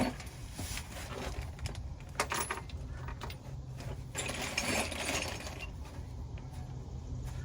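Metal hand tools and sockets clinking and rattling as they are handled and rummaged through: a few separate clinks, then a denser metallic rattle about four seconds in.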